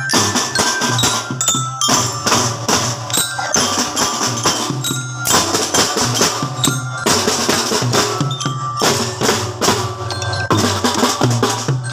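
A children's marching drum band playing: snare and bass drums beat a steady rhythm with cymbals, while glockenspiels (bell lyres) ring out a melody.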